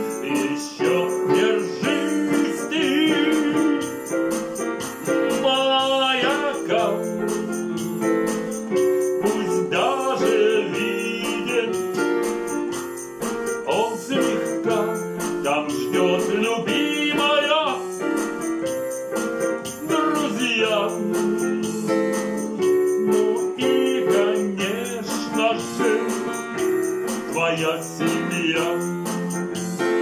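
An original song played on a Casio digital piano: sustained chords under a wavering melody line, with no pauses.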